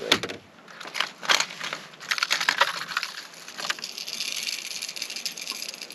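Rummaging through a plastic tackle box of lures: a few sharp clicks and knocks, then a stretch of crackling, rustling handling noise.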